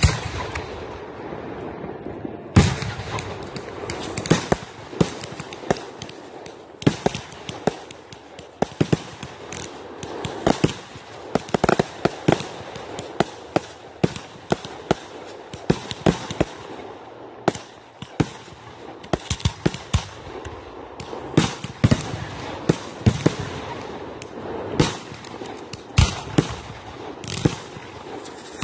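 Aerial fireworks going off: a string of sharp bangs from bursting shells, some single and some in quick clusters, over a continuous crackle, with one loud bang about two and a half seconds in.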